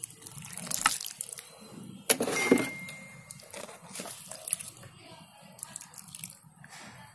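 Water poured from a plastic mug onto the potting soil of a freshly repotted garlic vine in a grow bag, splashing and trickling, with a louder, sharper stretch about two seconds in.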